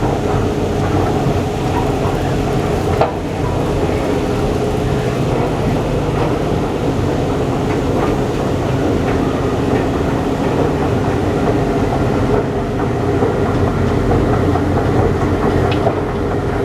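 1986 Montgomery escalator running: a steady mechanical rumble and clatter from the moving steps and drive, with a faint steady hum.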